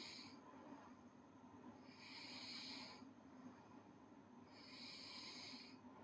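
A sleeping girl snoring faintly: slow, breathy, hissing breaths, one roughly every two and a half seconds.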